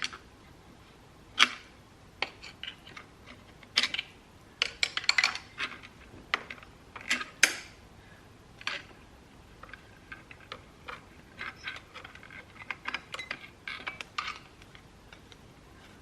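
Clutch plates of a Honda CR125 two-stroke clinking against each other and the clutch basket as they are worked out one by one and set down. The clinks are irregular and sharp in the first half, then softer and more frequent toward the end.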